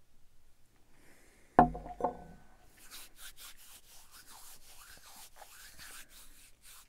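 A glass whisky tasting glass set down on a wooden table, two knocks about a second and a half in, with a brief ring. Then palms rubbing together, a rhythmic swishing of about three to four strokes a second.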